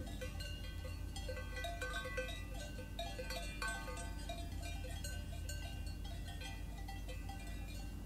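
Cowbells of grazing cattle clanking irregularly, many bells of different pitches ringing over one another, over a steady low outdoor rumble.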